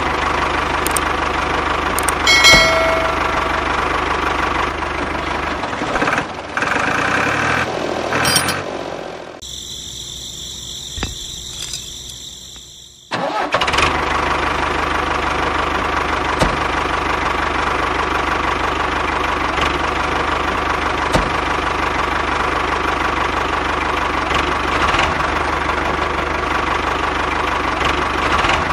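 Tractor engine sound running steadily, dropping to a quieter stretch for a few seconds in the middle and then coming back at full level.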